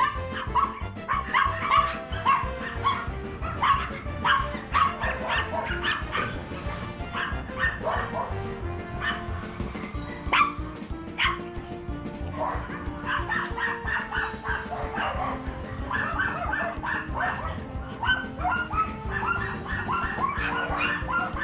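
Dogs barking and yipping in quick runs of short, sharp calls, over background music with a slow melody.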